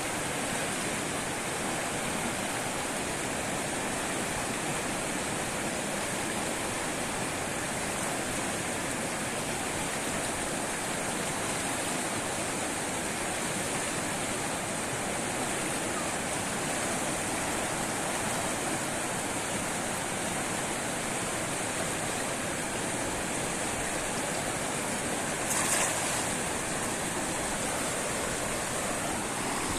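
Fast-flowing river water rushing steadily, with a brief louder noise about three-quarters of the way through.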